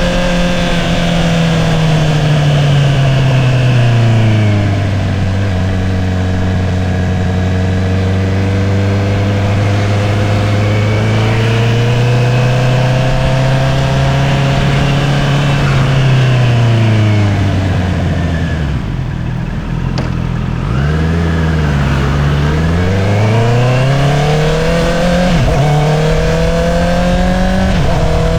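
2022 Honda CBR650R's inline-four engine through an Akrapovič single-outlet exhaust, heard from the rider's seat. The engine note falls as the bike eases off and then holds a steady cruise. About two-thirds through it drops nearly to idle as the bike slows. It then pulls away again, the revs climbing and dipping through gear changes.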